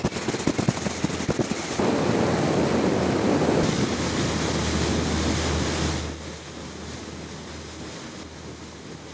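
Sea noise: wind buffeting the microphone and rushing water, with gusty knocks early on and a low steady hum in the middle. The sound drops much quieter about six seconds in.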